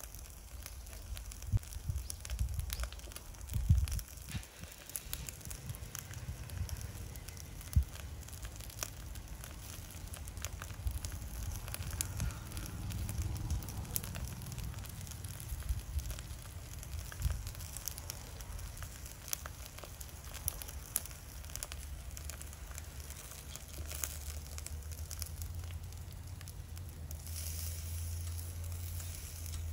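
Charcoal burning in a shichirin grill, crackling with scattered sharp pops, under a miso-marinated redfish fillet sizzling on the wire net. Near the end the sizzle turns into a steadier hiss.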